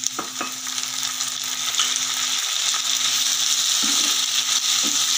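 Chopped tomatoes and fried onions sizzling in hot oil in a frying pan, stirred with a wooden spatula that knocks against the pan a couple of times near the start. The sizzle grows louder over the first two seconds and then holds steady.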